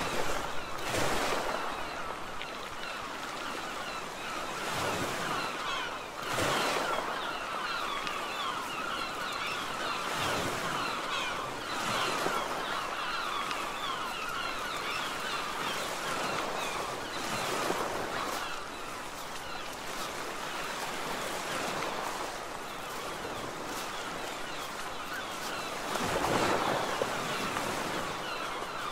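Sea surf washing over a rocky, weed-covered foreshore, with wind. The wash swells up every few seconds at uneven intervals.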